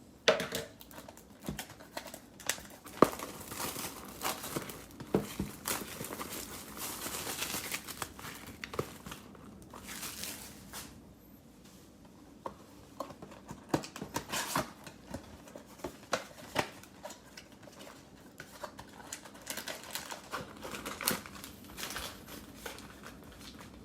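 Cellophane wrapping on basketball card packs crinkling and tearing as the packs are opened by hand, in repeated rustling bursts with scattered sharp clicks and taps of handling.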